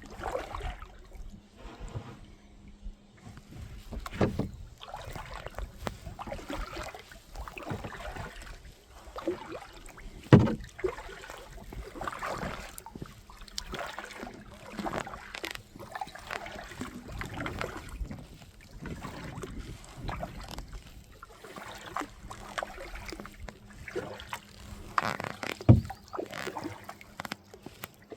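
Kayak on a river: irregular paddle splashes and water sloshing, with two sharp knocks, one about ten seconds in and one near the end.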